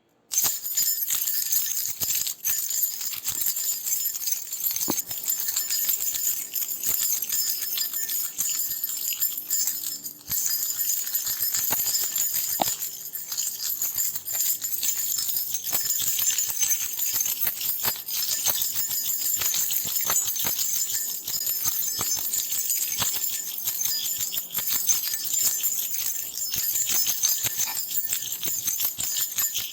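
A bunch of metal keys jingling as they are shaken continuously, a dense metallic clinking and rattling.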